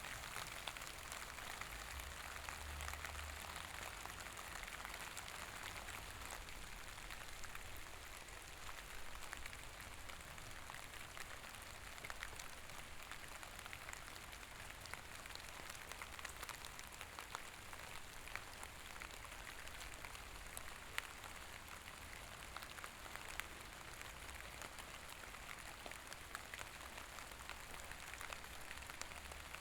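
Steady rain: a soft, even hiss with scattered ticks of individual drops and a faint low rumble underneath.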